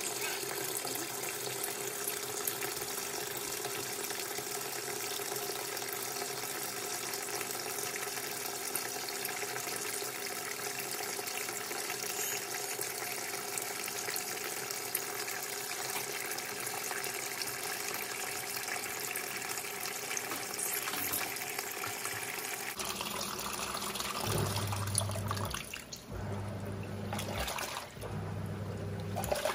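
Giantex EP23113GB top-loading washing machine filling with water, a steady rushing hiss. About 23 seconds in the fill stops and the wash motor starts agitating in short bursts, a low hum roughly every two seconds.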